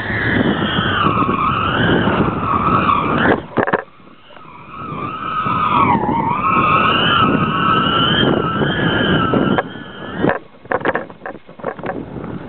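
Stack of stunt kites (Team Hawaiians and Flexifoils) whining in the wind over wind rushing on the microphone, the tone sliding down and back up in pitch. The tone drops away briefly about four seconds in, then returns, and a few sharp knocks come around ten seconds in.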